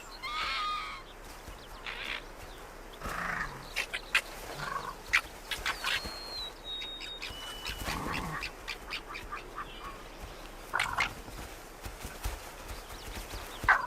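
Arctic fox cubs playing and sparring: scattered short squeaky calls, yips and scuffling clicks throughout. A few held whistling notes step down in pitch about six seconds in.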